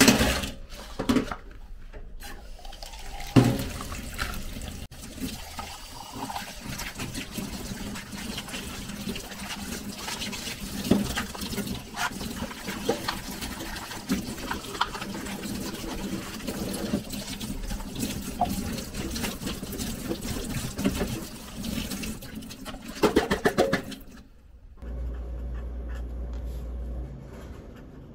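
Tap water running into a stainless steel sink as glass cups are rinsed by hand, with a few knocks of glass against glass or the sink. Near the end there is a short clatter and the water stops.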